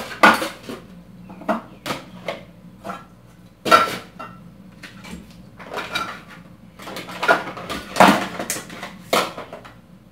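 Cookware and dishes clattering: a stainless steel bowl, pans and plates knocked and set down on a kitchen counter in an irregular series of clanks, the loudest about a second apart near the start, in the middle and about two seconds from the end.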